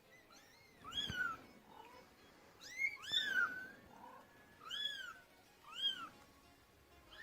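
Kittens mewing: a series of short, high-pitched calls that rise and fall in pitch, about one a second, the way kittens call for their mother.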